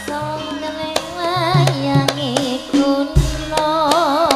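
Javanese gamelan music played through a PA system. A female sinden sings long notes with a wide, wavering vibrato, about a second in and again near the end, over struck gamelan metallophones. Deep kendang drum strokes come in about three seconds in.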